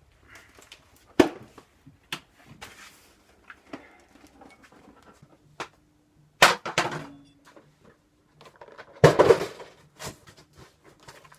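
Scattered clicks, knocks and rustling of things being handled, with two louder scuffling bursts about six and a half and nine seconds in.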